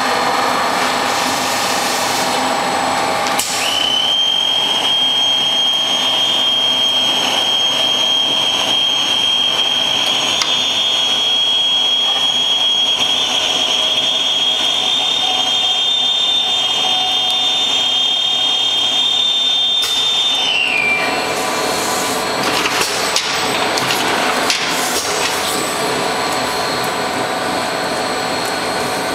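Manual case maker running with a steady mechanical noise throughout. A high steady whine sets in a few seconds in, holds, then drops in pitch and stops about two-thirds of the way through. Scattered knocks and clatter follow near the end.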